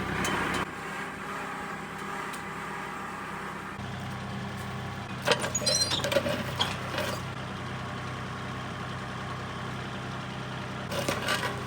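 Kubota compact diesel tractor engine running steadily, its note shifting about four seconds in. A short run of clanks and knocks comes around the middle, with more near the end.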